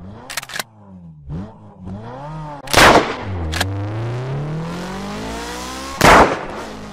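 Intro sound effects: an engine revving up and down throughout, with two loud gunshots about three seconds apart and a few sharp clicks near the start.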